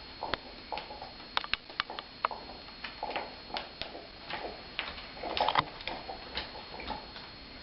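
Irregular light clicks and taps, with a brief cluster of scraping about five and a half seconds in, as a replacement laptop LCD panel is handled and fitted into the plastic lid.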